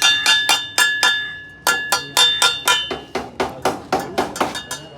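A hammer striking a metal car silencer (muffler) in a rapid run of blows, about four a second, each with a clear metallic ring. In the last couple of seconds the strikes come faster and duller, with little ring.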